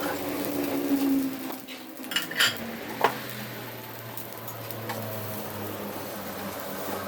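A cooking utensil knocking and scraping against a non-stick frying pan, with a few sharp clinks about two to three seconds in.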